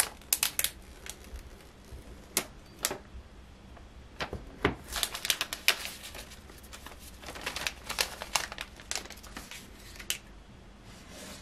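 Clear plastic shrink-wrap being peeled and pulled off an iPhone 12 Pro Max box, crinkling and crackling in quick irregular bursts, with light clicks and taps as the box is handled.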